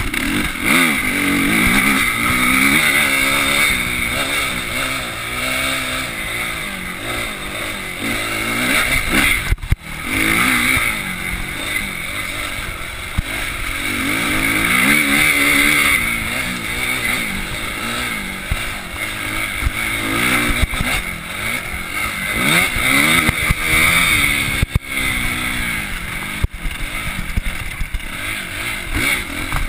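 Suzuki RM-Z250's four-stroke single-cylinder engine revving up and down over and over as the motocross bike is ridden hard around a dirt track, heard close from a handlebar camera. The sound drops out sharply for a moment about ten seconds in.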